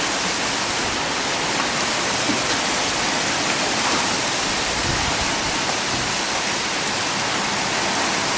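Torrential rain pouring down, a steady dense hiss with no letup.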